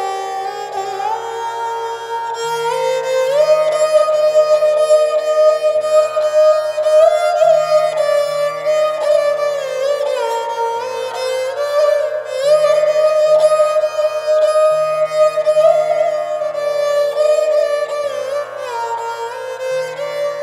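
Background instrumental music in an Indian classical style: a gliding string melody over held bass notes.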